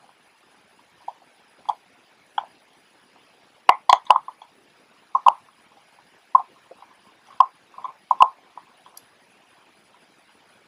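Precision screwdriver working a tiny screw out of an opened Canon AF35M II camera: light, irregular clicks and ticks of the metal tip against the screw head and the camera's plastic and metal parts, with a cluster of sharper clicks about four seconds in and more around seven to eight seconds.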